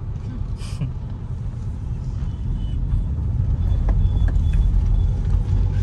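Car driving in traffic: a steady low road and engine rumble that grows gradually louder.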